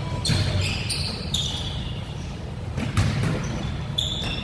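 Pickup basketball on a hardwood gym floor: a ball bouncing with a few sharp thuds, the loudest about three seconds in, and short high-pitched sneaker squeaks.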